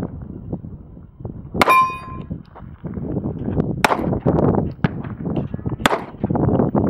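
Three shots from a Springfield Armory XD-S 9mm pistol, about two seconds apart. The first is followed by a steel target ringing with a clear metallic clang. Wind rumbles on the microphone through the later shots.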